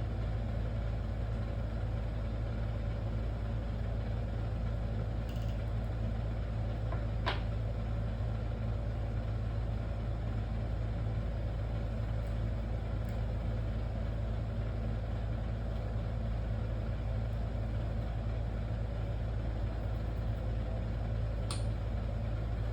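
Steady low machine hum, with two sharp clicks: one about seven seconds in and one near the end.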